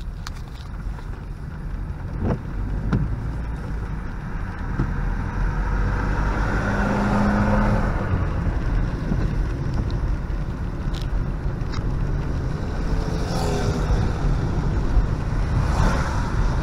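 Car driving on a wet road, heard from inside the cabin: a steady rumble of engine and tyres on wet asphalt, with rain on the windscreen.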